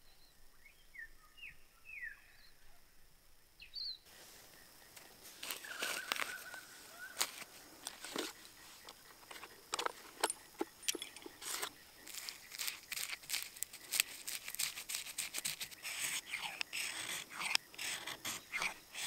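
A few short bird calls at dusk. After about four seconds comes the scraping of a knife blade shaving curls off a piece of wood, in irregular strokes. Near the end the strokes turn fast and dense, as the knife scrapes a ferro rod to throw sparks onto the shavings.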